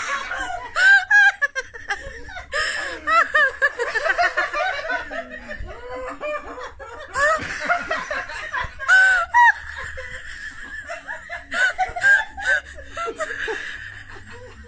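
People laughing hard, high-pitched and almost without a break. It is loudest about a second in and again around seven to nine seconds.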